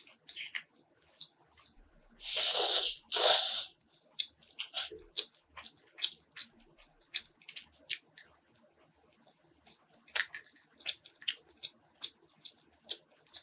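Close-up eating sounds: many small wet clicks and crackles of chewing. About two seconds in come two loud, breathy bursts of air, one right after the other.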